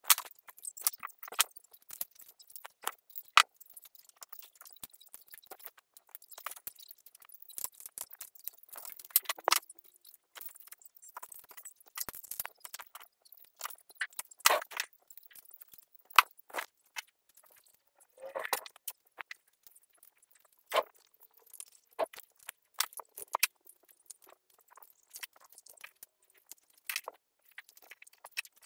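Irregular small clicks, clinks and taps of metal parts and a small screwdriver being handled while an RC excavator's track drive gear assembly is put back together.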